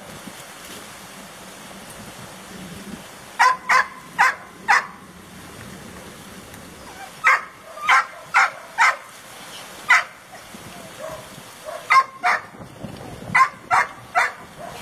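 A dog barking in short, sharp, high yaps, in quick clusters of two to five with pauses between.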